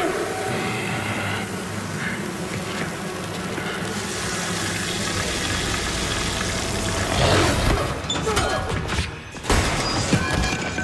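Fight-scene sound effects: a steady rushing roar over a low drone, a rising whoosh about seven seconds in, and sharp hits about nine and a half seconds in.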